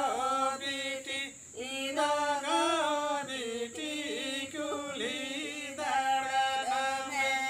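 Voices singing a Santali Sohrai song (sereng) unaccompanied, the melody moving through bending, sustained notes and ending on a long held note near the end.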